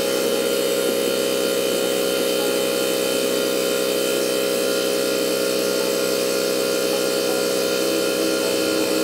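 Steady mechanical drone of a running machine, a constant hum with several fixed tones that does not change.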